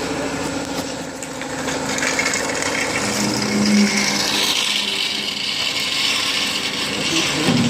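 Trailer-mounted industrial vacuum with a positive-displacement blower sucking up soil through its hose, a dense rushing, gritty crackle of earth and grit drawn through.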